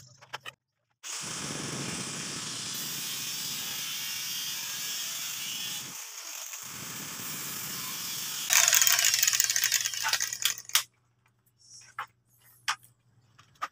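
Handheld electric angle grinder running, then much louder and rougher for about two seconds as its disc cuts lengthwise through a PVC pipe, then switched off; a few light clicks follow as the cut pipe is handled.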